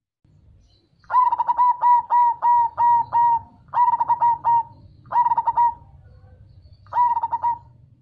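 Zebra dove (perkutut) singing: four phrases of quick, rippling coos, the first a long run of about eight notes, the next three shorter, with brief pauses between.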